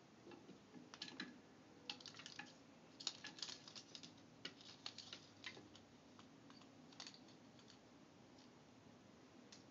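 Faint, irregular light clicks and taps from a kitten batting a drinking straw about on carpet and against the legs of a small table. They come thickest in the first half and thin out to a single tap about seven seconds in.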